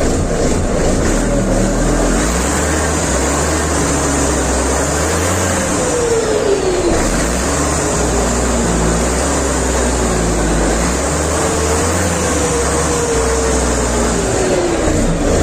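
Freshly rebuilt MAN truck diesel engine running after its first start, with new cylinders, piston rings and injectors; its speed rises and falls slowly a few times.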